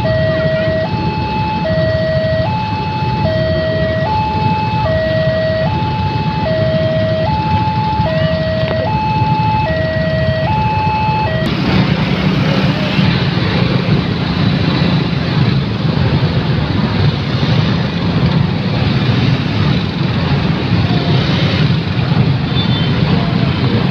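Railway level-crossing warning alarm sounding a two-tone electronic ding-dong, alternating low and high about every 0.8 s over a steady low rumble. It cuts off suddenly about halfway through, and the noise of motorcycle engines pulling away across the tracks takes over.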